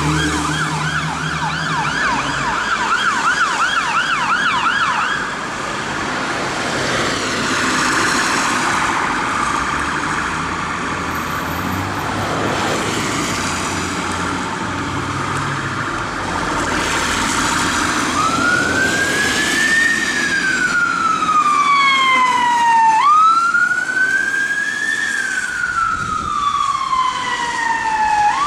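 Emergency sirens on the street. First a fast yelp siren, about five warbles a second, from a Dennis fire engine as it passes. From about two-thirds of the way in there is a slow wail that rises and falls every few seconds, as a police van on blue lights follows.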